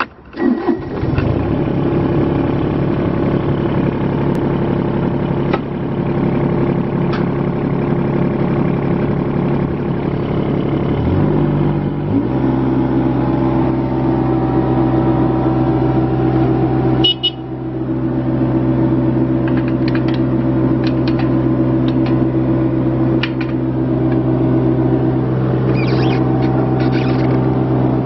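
A John Deere 17D mini excavator's diesel engine catches right at the start and then runs steadily. About 11 seconds in its speed dips briefly and settles at a new steady speed, as the throttle is changed. Light clicks and rattles come from the controls near the end.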